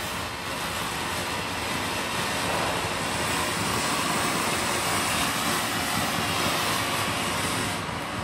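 Ground fountain firework spraying sparks with a steady rushing hiss, a little louder in the middle and easing off near the end.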